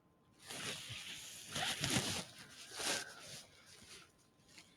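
Metal spatula scraping and scooping food out of a wok: about three rough scraping strokes.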